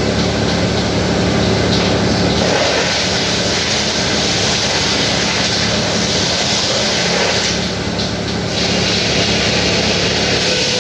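Sawmill machinery running: a loud, steady mechanical drone over a low engine hum, easing slightly for a moment about eight seconds in.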